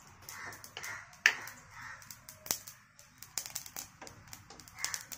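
Non-stick kadai of dry-roasted cumin, fennel, shallots and peanuts being handled with metal pan tongs: scattered clicks and taps with short scraping sounds, and one sharp knock about a second in.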